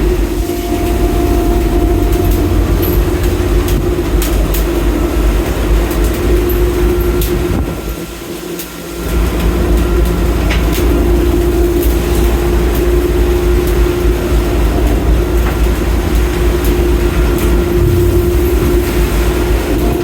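Longline fishing boat's machinery running through the haul: a steady low rumble with a held hum, with occasional clicks and knocks over it. The rumble drops away briefly about eight seconds in, then returns.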